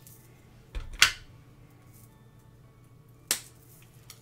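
Dalgona honeycomb sugar candy snapped apart by hand, giving crisp, sharp cracks: a quick pair about a second in and another a little past three seconds.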